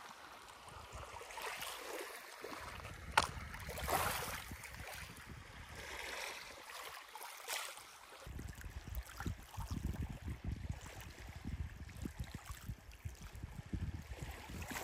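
Small waves lapping on a pebble lakeshore, with soft washes about four and seven seconds in and a sharp click about three seconds in. From about eight seconds in, wind rumbles unevenly on the microphone.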